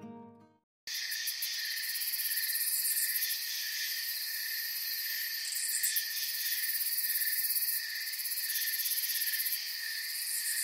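Guitar music fades out in the first second. Then comes a steady, dense, high-pitched chorus of night insects with a fast pulsing rhythm.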